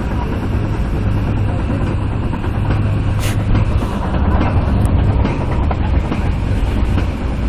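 Metra commuter train running over the track as it slows, a steady low running noise from the wheels and rails. A few sharp clicks, the strongest about three seconds in, come from the wheels passing over rail joints.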